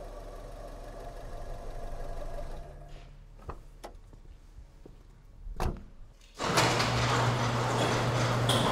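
A few sharp clicks and a knock, then, about six and a half seconds in, an overhead garage door starts rolling open: a sudden loud, even rattling rumble with a steady low hum under it.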